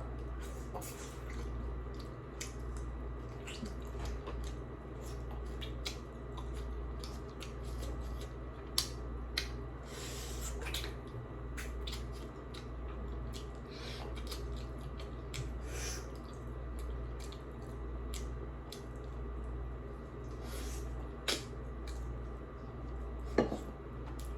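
Close-up eating sounds: wet chewing and slurping of noodle soup, with scattered sharp clicks of a utensil against the bowl, three of them louder than the rest, over a steady low hum.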